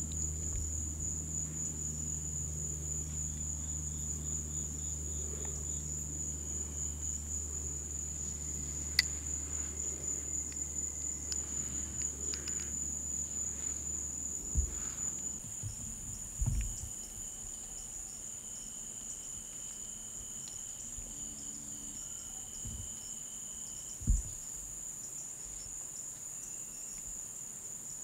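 Steady high-pitched chorus of night insects trilling without a break, with a low hum underneath that stops about halfway. A few soft knocks stand out, a sharp click about nine seconds in and a low thump near the end.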